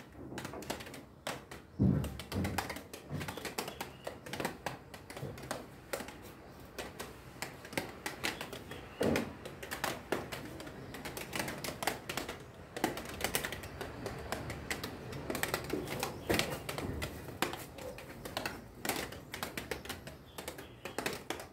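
Irregular light taps and clicks, several a second, with a few louder knocks about two and nine seconds in.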